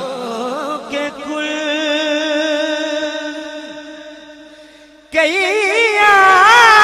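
Man singing an Urdu naat through a microphone without words: a wavering, ornamented phrase settles into a long held note that slowly fades, then about five seconds in a louder, higher phrase with strong vibrato begins.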